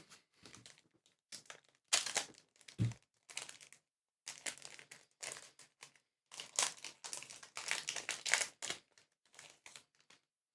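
Foil trading-card booster pack wrapper crinkling as it is handled and opened, in irregular crackly bursts with short quiet gaps.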